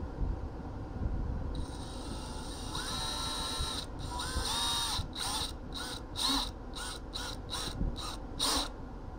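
Cordless drill working in a van's dashboard: it starts about a second and a half in and runs steadily with its pitch rising and falling. Then it goes in short trigger pulses, about two or three a second, spinning up and stopping each time, until near the end.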